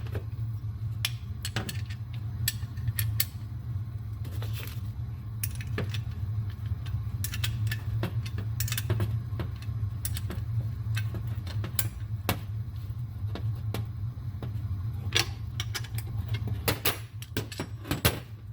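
Irregular metallic clicks and clinks of a wrench tightening the nut on the pulley bolt of a mower's blade brake bracket, over a steady low hum.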